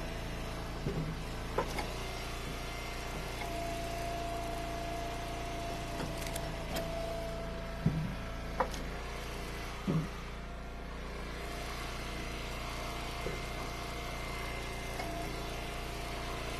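Engine-driven Eastonmade Ultra hydraulic log splitter running steadily with a constant whine while it splits hickory rounds. A few sharp cracks and knocks of the wood splitting and being handled cut through, the loudest about eight seconds in.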